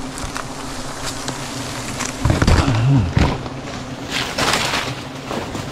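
A swarm of honeybees buzzing in a steady low hum around their disturbed nest. About two and a half seconds in comes a short wordless vocal sound from a man, and a brief rush of noise follows around four seconds in.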